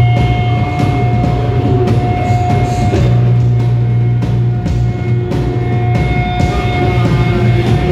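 Loud live noise-rock playing: a drum kit beating under held droning tones from a patch-cabled electronics and effects-pedal rig, with electric guitar, all in one dense, unbroken wall of sound.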